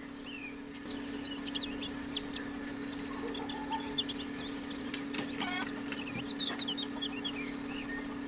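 Birds chirping and chickens clucking in the background, many short calls one after another, over a steady hum.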